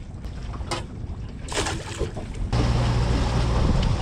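Water splashing and dripping as an empty crab drop net is hauled up beside a small aluminium boat. About two and a half seconds in, the boat's motor cuts in suddenly and runs steadily, with wind and water rushing past.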